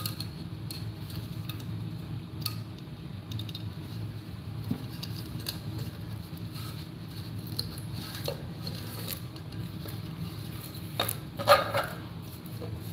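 Handling noise from 3D-printed plastic rocket parts and wire being moved and fitted together on a table. Scattered soft taps and one louder clack about eleven seconds in, over a steady low hum.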